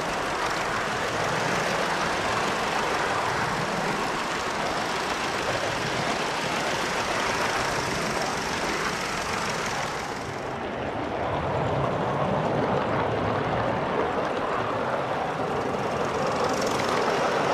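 Gauge 1 model train running on garden railway track, a steady rushing noise with no distinct beat. About ten seconds in, the high hiss drops away abruptly.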